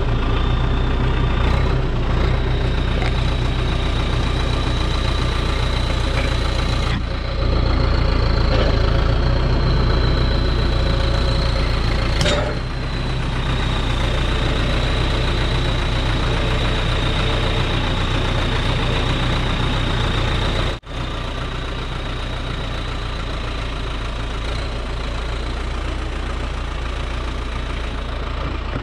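Heavy diesel engine idling steadily, with a thin, steady high whine above it; the engine is a little louder for about five seconds in the middle.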